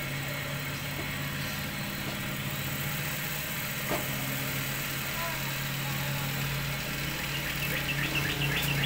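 Cotton candy machine running on test: a steady motor hum with a noisy hiss behind it, joined by a deeper rumble about six seconds in.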